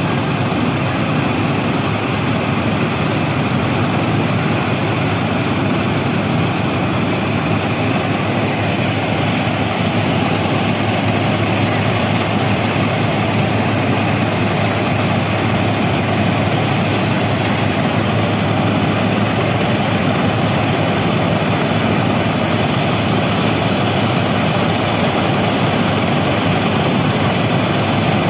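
FRM-85F formation rehabilitation machine working on the track, a steady, loud, heavy mechanical running noise with a deep hum underneath that does not change.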